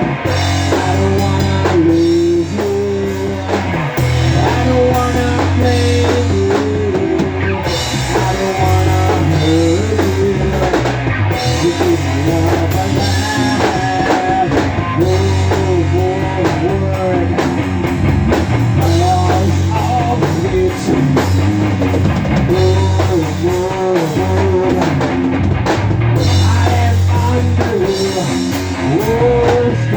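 Rock band playing: electric guitar over a drum kit, with a lead melody line bending in pitch above a steady low part.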